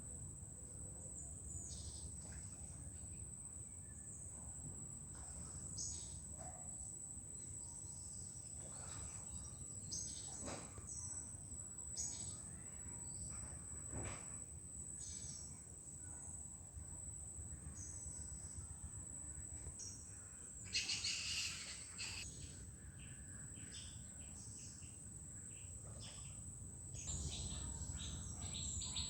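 Outdoor ambience: scattered short bird chirps over a steady high-pitched insect drone and a low rumble. A louder burst of chirping comes about two-thirds of the way through, and quick repeated chirps come near the end.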